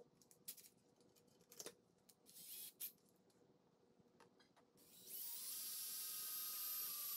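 A few handling clicks and knocks, then a cordless drill runs steadily for about two seconds near the end, its bit boring into a wooden block with a steady motor whine.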